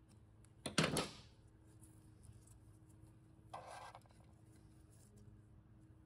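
Hand tools and a transmission valve body being handled on a steel workbench. There is a sharp clatter about a second in and a brief scraping rustle near the middle, over a faint steady hum.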